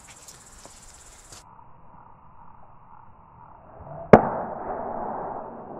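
A plastic computer mouse, swung by its cable, is smashed against the ground once about four seconds in: a single sharp hit, followed by a short rustling hiss.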